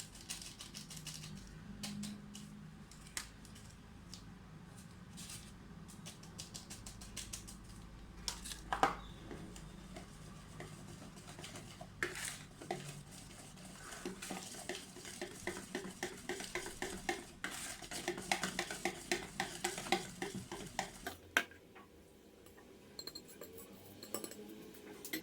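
A utensil clinking and scraping against a mixing bowl as sifted flour is stirred into cake batter. Scattered knocks give way to a run of quick, rhythmic stirring strokes in the middle, which stops a few seconds before the end.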